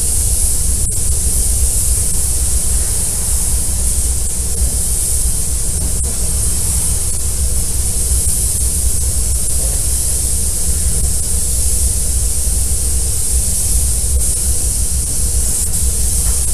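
Compressed-air spray guns hissing steadily while spraying glass coating onto a car's paintwork, over a steady low rumble.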